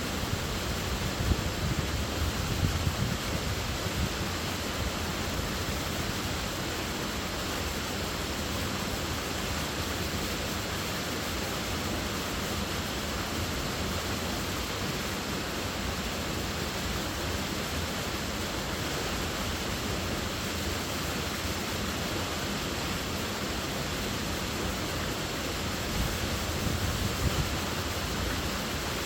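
Waterfall: a steady, even rush of falling water, with a few brief louder low surges near the start and again near the end.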